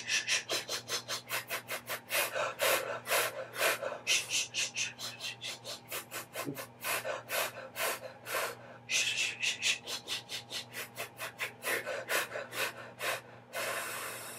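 Voiced-less hissed 'f' breaths pushed out in rapid pulses, about four or five a second, with a few longer sustained Fs near the middle and a long one near the end: a singer's breath-support exercise that drives each pulse from the abdominal muscles.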